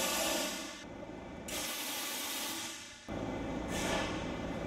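Compressed air hissing from the pneumatic system of a CRC-Evans copper backup clamp as its clamping mechanism is operated: several bursts of hiss, one easing about a second in, another from about a second and a half to three seconds, and a third starting near the end.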